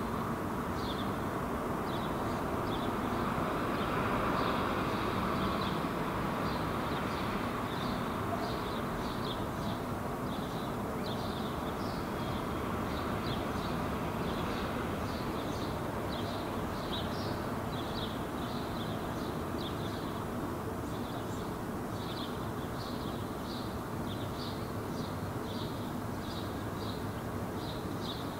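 A bird calling over and over in short, high chirps, about one or two a second, over a steady rushing background noise.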